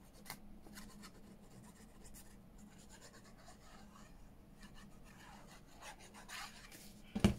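Faint rubbing and scratching of paper being handled and pressed down onto a journal page, with small scattered clicks and one sharp knock near the end.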